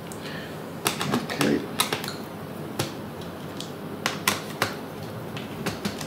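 Irregular sharp clicks and small metallic taps from a hand screwdriver working the screws out of a Pioneer DDJ-1000 controller's jog-wheel assembly.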